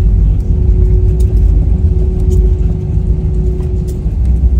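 Jet airliner rolling on the ground after landing, heard from inside the cabin: a loud, steady low rumble with a constant hum over it.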